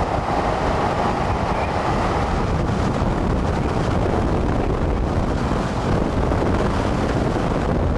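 Strong wind buffeting the microphone: a loud, steady rush of noise, heaviest in the low end.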